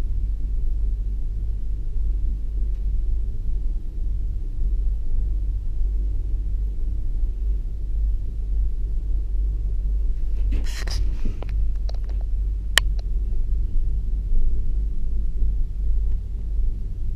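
Steady low rumble of a Leitner eight-seat gondola cabin riding up its haul rope, heard from inside the cabin. About ten seconds in a short hiss comes up, followed by a few sharp clicks.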